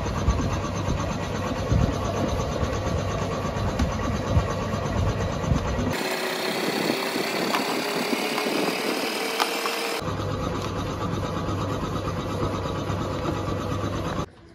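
Hand wet-sanding of a raw plastic car bumper with 1000-grit sandpaper, the paper rubbing back and forth over the plastic, over a steady low hum. The hum drops out for a few seconds in the middle, then returns.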